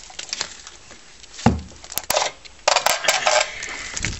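Metal parts of a diffusion-pump stack being handled and fitted together: scattered clinks and knocks, with a dull thump about a second and a half in and another near the end.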